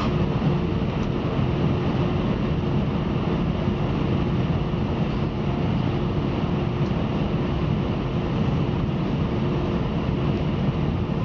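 Steady airliner cabin noise while taxiing after landing: the engines running at taxi power, heard from inside the cabin as a constant rumble with two faint steady hums.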